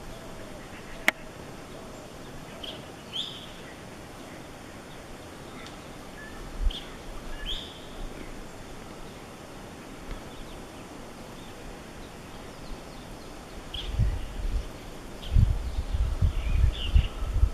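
Short, scattered bird chirps a few seconds apart over a steady outdoor background hiss, with low rumbling thumps on the microphone near the end.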